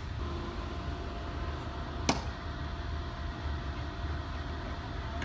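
Steady low background rumble with one sharp knock about two seconds in.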